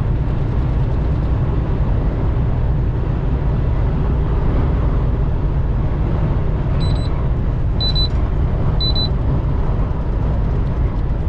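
Steady low rumble of a semi-truck's engine and road noise heard inside the moving cab. Three short high-pitched beeps sound about a second apart, around seven to nine seconds in.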